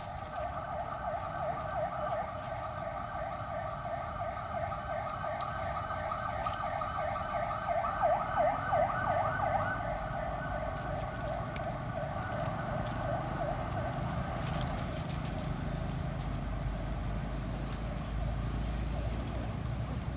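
Cicadas droning steadily in a continuous, rapidly pulsing chorus, loudest about eight seconds in.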